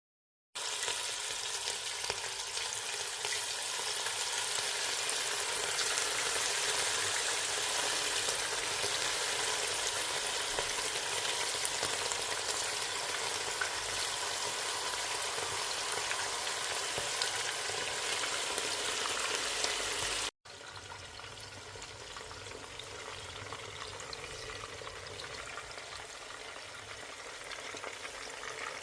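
Food frying in a pan, a steady sizzle. About two-thirds of the way through it cuts off abruptly and resumes as a quieter sizzle.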